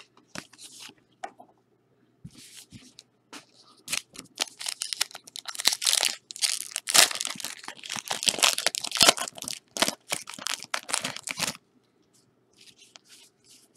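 A trading-card pack's wrapper being torn and crinkled by hand. Scattered soft crackles lead into a dense run of crinkling and sharp tearing snaps from about four seconds in, which stops abruptly about two seconds before the end.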